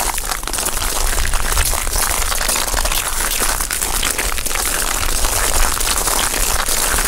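Dense, continuous crackling of countless tiny clicks: seashells and shell fragments crunching and rattling, over a low rumble.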